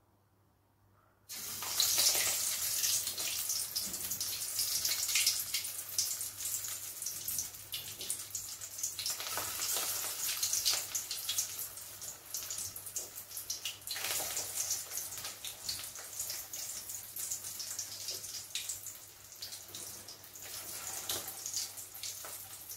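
Potato and poha cutlets sizzling and spattering in hot oil in a steel kadai. The sizzle starts suddenly about a second in as the first cutlet goes into the oil, then runs on as a dense crackle with louder spells as more cutlets are added.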